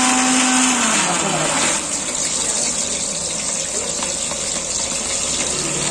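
Hot oil sizzling in a large aluminium pot as whole spices and slit green chillies fry, a dense steady hiss. It is louder for the first couple of seconds and settles a little lower after that.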